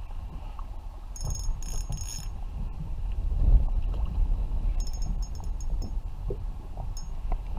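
Water lapping against a kayak hull with wind on the microphone, and two short runs of high-pitched chirps, about a second in and again about five seconds in.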